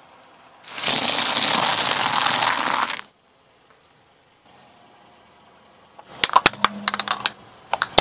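A pile of crunchy chips crushed under a car tyre: a dense crackling crunch lasting about two seconds. Near the end, a quick series of sharp snaps and cracks.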